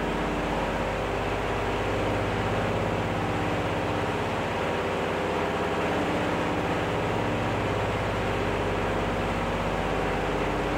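Aircraft engines running with a steady, even drone.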